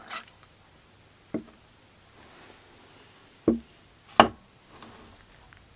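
Four sharp knocks of hard objects, spaced irregularly over a few seconds, the loudest about four seconds in.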